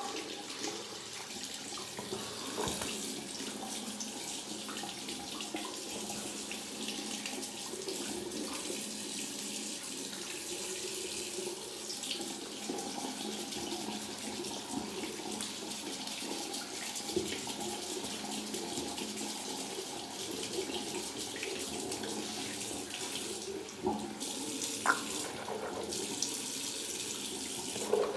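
Bathroom tap running steadily into a sink, with a couple of brief, louder sounds near the end.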